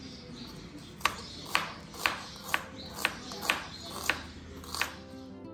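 Kitchen knife slicing a red onion on a wooden cutting board, each stroke ending in a sharp tap on the board, about two a second.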